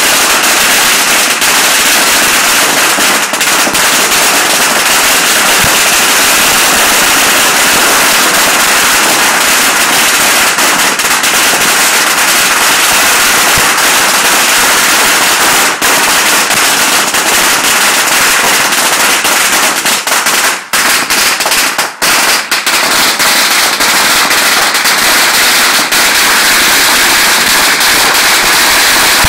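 Several long strings of Chinese firecrackers going off at once in a continuous, loud, dense crackle of bangs, with a few brief lulls about two-thirds of the way through.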